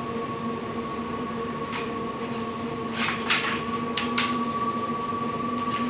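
A steady machine hum, with a few short scuffs and knocks about two, three and four seconds in as two large long-haired dogs scramble and wrestle on a wooden slat mat, the loudest between three and four and a half seconds.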